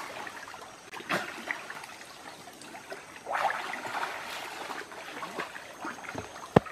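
Water splashing and sloshing as men wade and slap the surface of a shallow muddy creek, louder about a second in and again around three to four seconds. A single sharp knock near the end.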